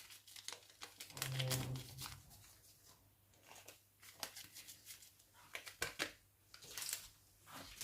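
Irregular crinkling and rustling of packaging with small clicks and taps, as dry baking ingredients are handled and added to a bowl.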